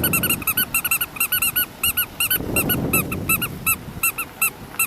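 A rapid series of short, high squeaky chirps, several a second, over a low rustling noise.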